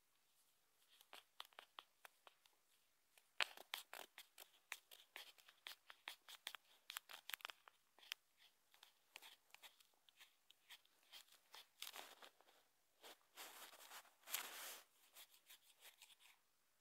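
Faint, irregular taps and clicks from fingers working a phone's touchscreen, with a couple of longer scratchy rubs in the second half.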